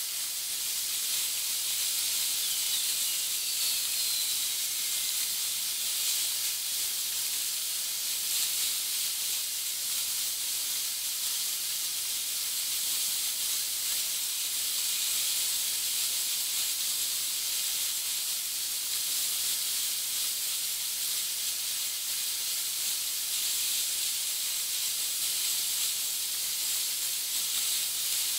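Sea surf on a rocky shore, sped up twenty times, so that it comes through as a steady high hiss with almost no low rumble.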